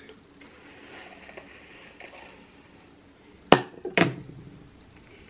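Faint rustle of a hairbrush through hair, then two sharp knocks about half a second apart past three seconds in, the hairbrush being put down on a hard surface.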